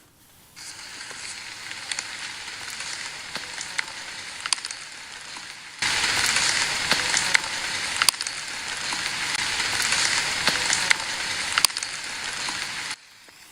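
Playback of a night-time EVP field recording: steady hiss with scattered crackling clicks, stepping up louder about halfway through and cutting off suddenly near the end. No clear voice stands out in it.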